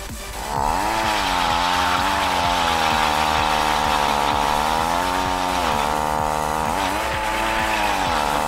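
Gas-powered ice auger engine starting up about half a second in and running under load as it drills through the lake ice, its pitch sagging and recovering as the bit bites. It drops briefly about six seconds in, picks back up and cuts off at the end.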